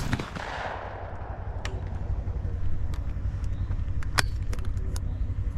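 A single shotgun shot fired at a thrown clay target, its echo fading over about a second. A few sharp clicks follow, the strongest about four seconds in, over a steady low rumble.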